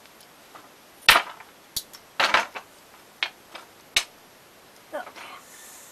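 Several sharp knocks and clacks, the loudest about a second in, as the metal false-barrel suppressor tube of a Krico .22 rifle and its parts are handled and knocked against a wooden workbench.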